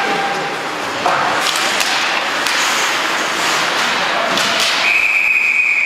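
Ice hockey play in an indoor rink: sharp knocks of puck and sticks against the boards over the general noise of play, with a few short shouts. About five seconds in a referee's whistle blows, one long steady blast, stopping play.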